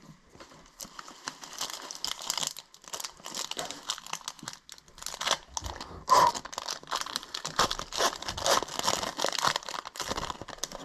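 Foil Metal Universe hockey-card pack being torn open and its wrapper crinkled: a long run of crackling rustles, the loudest crackle about six seconds in.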